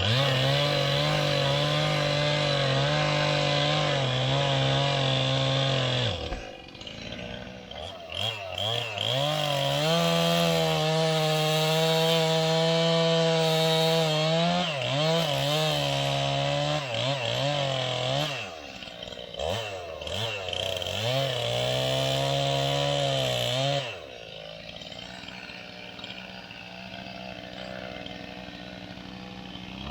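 Chainsaw cutting with the tip of its bar through a log's hinge, at full throttle in three stretches, with the engine falling back to idle between them and idling steadily through the last several seconds.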